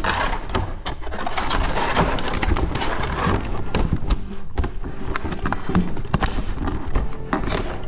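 Hands handling a cardboard box and a folded cardboard game board: rubbing, scraping and many small knocks.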